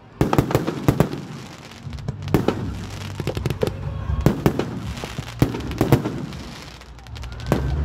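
Fireworks or firecrackers going off in an irregular string of sharp bangs and pops, some in quick clusters, with a low steady rumble underneath from about two seconds in.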